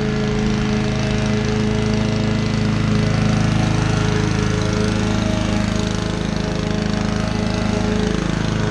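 Honda 216 self-propelled rotary lawn mower's single-cylinder four-stroke engine running steadily while cutting grass.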